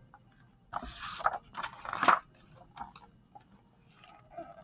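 Pages of a picture book being turned and handled close to the microphone: a paper rustle and scrape lasting about a second and a half, then a few light taps.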